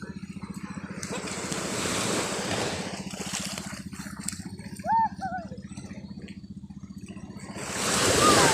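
A boat engine running with a steady low pulse, while waves wash in twice, the second and louder one near the end. A brief call of a voice about five seconds in.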